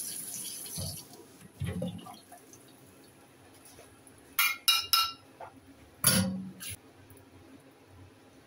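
Water splashing briefly at the start, then wet broccoli and kitchen bowls being handled in a plastic basin: three quick sharp clinks about four and a half seconds in, and a louder knock about a second later.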